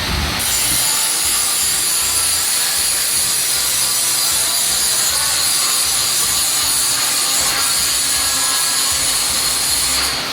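Power tool running steadily against metal while a replacement exhaust flange is fabricated, loud and hissing; it stops just before the end.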